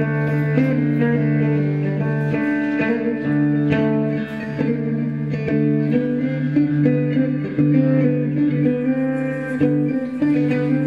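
Live experimental ensemble music: plucked guitar notes over a steady, sustained low drone and held pitched tones from the other instruments.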